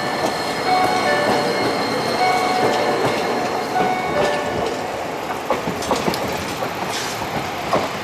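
Toei Arakawa Line 8800-series tram running over a winding stretch of track, its wheels clattering over the rails, with several sharp knocks in the second half. Short electronic tones at changing pitches sound over it until about four and a half seconds in.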